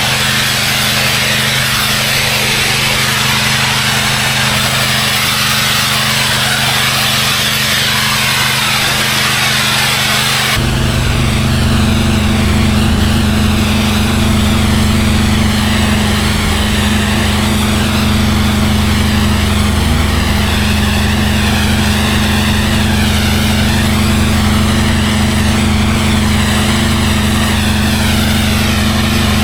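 Gas-engine pressure washer running steadily, with the hiss of the high-pressure water spray over the engine hum. About ten seconds in, the sound changes abruptly and the engine becomes louder and deeper.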